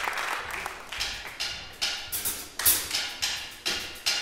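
Steady rhythmic tapping, about two to three sharp taps a second, each ringing out briefly in a large hall.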